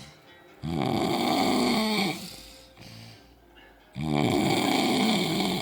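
A man snoring while asleep: two long snores, one starting just under a second in and another about four seconds in, each with a fluttering rattle.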